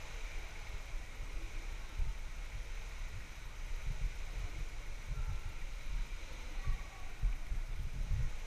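Indoor swimming pool ambience: an uneven low rumble with gently lapping water and a steady hiss.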